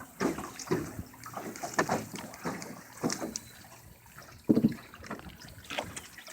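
Scattered knocks, clunks and light water sounds around a small fishing boat while the jug lines are handled, the loudest knock about four and a half seconds in.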